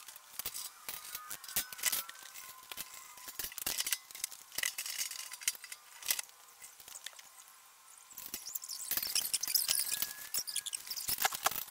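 Metal clicks and clinks of hand tools on the condenser fan guard's motor-mount nuts, with a dense run of rapid clicking near the end as a nut is turned.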